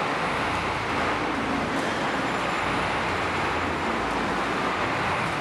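Steady rushing noise of water and wind from the simulated rough weather in an indoor sea-survival training pool.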